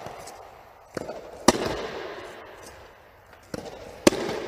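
Soft tennis front volleys: twice, a fainter pop of the rubber ball being fed is followed about half a second later by the loud, sharp pop of the ball coming off the volleying racket's strings. Each hit echoes on in the covered court.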